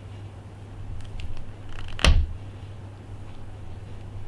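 Small clicks and ticks from handling the phone and suction cup, with one sharp, loud click about two seconds in, over a steady low hum.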